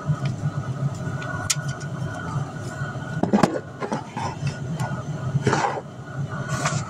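Plastic toy train pieces clicking and scraping as they are handled close to the microphone, a few sharp clicks and two short rustling scrapes, over a steady low hum.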